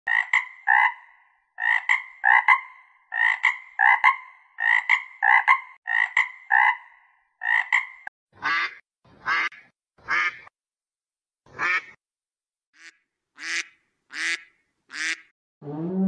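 Frog croaking: quick pairs of short, clear croaks repeated for about eight seconds, then slower single croaks with a coarser sound, spaced about a second apart.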